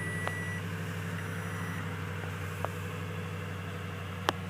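Toyota Tundra's 5.7-litre V8 idling in Park, heard inside the cab as a steady low hum. A high dashboard chime beeps once at the start and again, fainter, a second later. A few light clicks follow, the sharpest just before the end.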